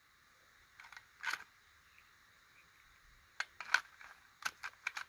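Faint scattered clicks and light taps of small sewing items being handled in a metal sewing-kit tin: a couple about a second in, then a quicker run of them in the second half.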